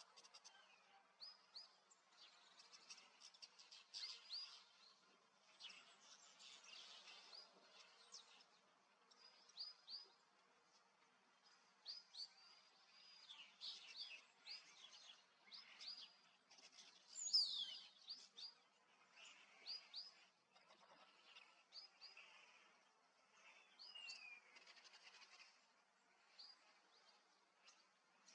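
Several birds chirping and calling: short high chirps throughout, with a louder falling call about seventeen seconds in.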